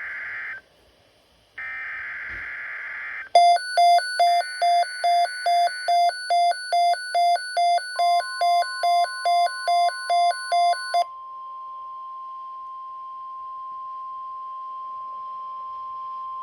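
Emergency Alert System SAME header data bursts: two harsh digital screeches about a second apart. Then an electronic alarm beeps about two and a half times a second for about seven seconds, with a third header burst faintly under its first seconds. Midway through the beeping, a steady single tone near 1 kHz starts, the NOAA Weather Radio warning alarm tone, and carries on after the beeping stops.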